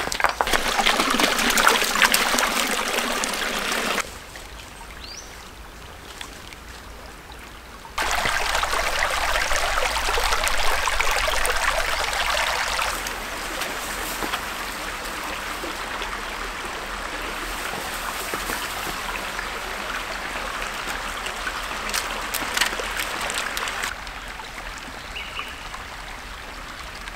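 Small rocky mountain creek running and trickling over stones. Its loudness drops about 4 seconds in, comes back up at 8, and eases off around 13 and again near the end.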